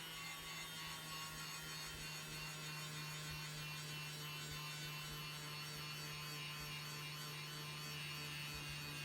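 Steady electrical hum with a faint high whine above it, with no grinding or sanding contact.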